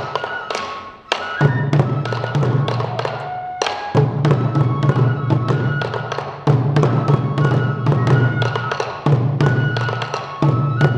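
Sansa odori music: many taiko drums struck in a steady, driving rhythm, with a bamboo flute playing a melody over them.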